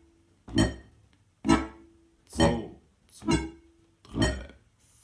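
Steirische Harmonika (Strasser diatonic button accordion) bass side played on the pull: short, detached notes alternating between a low bass and a chord, five strokes a little under a second apart, in the even oom-pah rhythm of a beginner's bass exercise.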